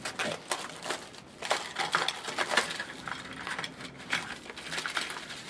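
Packaging of a new weatherproof switch cover being opened by hand: plastic and cardboard crinkling, with irregular small clicks and crackles.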